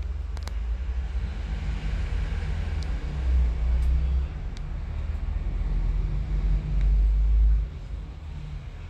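Low rumble of riding along a city street: road and wind noise from the moving vehicle, swelling louder twice, about three seconds in and again near seven seconds.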